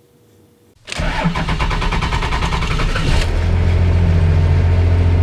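1997 Dodge Ram's Cummins 5.9 L straight-six turbo-diesel being cranked by the starter, beginning about a second in. It catches after about two seconds of cranking without the throttle pedal and settles into a steady idle.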